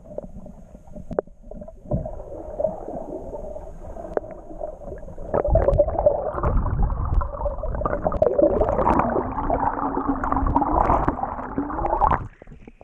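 Muffled rushing and gurgling of water heard through a microphone held underwater beside a kayak, with scattered knocks. It grows louder about halfway through and cuts off abruptly near the end as the microphone comes out of the water.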